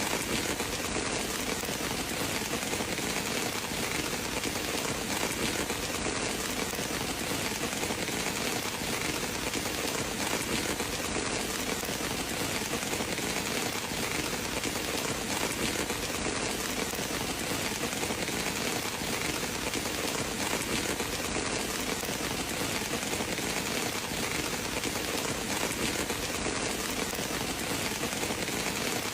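Steady, even rain falling on a surface, a continuous hiss with no breaks or thunder.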